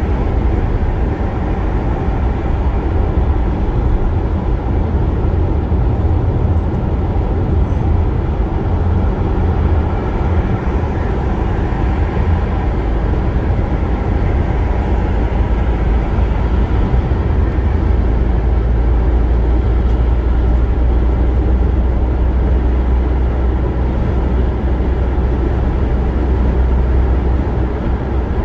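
Steady road and tyre noise from a car cruising at highway speed, heard inside the cabin, with a deep low rumble that gets heavier a little past halfway.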